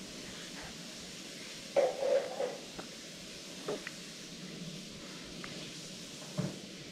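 Steady hiss of falling rain, with a few faint clicks and knocks on top of it.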